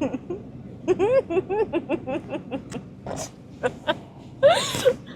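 A person laughing in short, quick bursts, with a louder drawn-out laugh near the end.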